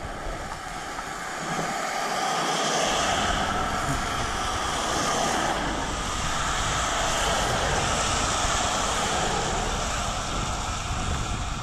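Wind buffeting the microphone: a steady rushing noise that rises a little about a second in and then holds.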